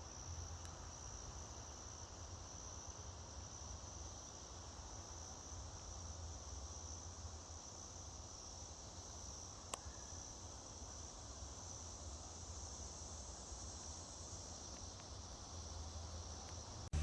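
Faint, steady high-pitched trilling of an insect chorus, with a low rumble underneath and one sharp click about ten seconds in.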